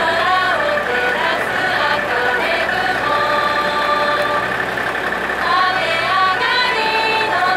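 Several women singing a song together, holding some long notes, with a faint steady low hum underneath.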